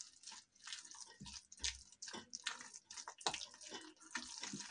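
A hand mixing a thick, wet semolina and ground-pea batter in a glass bowl: faint, irregular squishing strokes.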